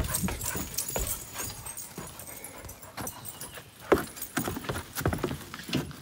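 Dogs' paws striking bare dirt as they run about: irregular, uneven footfalls, with one sharper knock about four seconds in.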